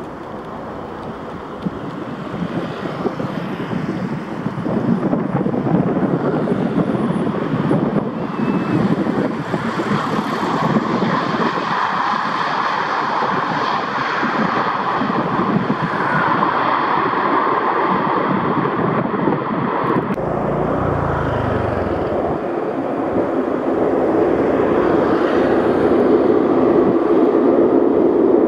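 Turboprop engines and propellers of a four-engine C-130 Hercules military transport running on the runway, a dense engine noise that grows steadily louder.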